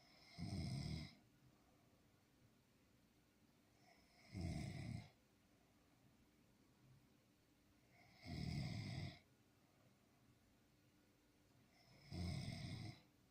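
A sleeping person snoring: four snores, each under a second long, coming regularly about every four seconds.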